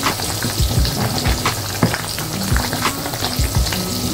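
Thick tamarind curry with prawns and drumsticks simmering in a steel pot: a steady crackle of bubbles with frequent low plops as they burst.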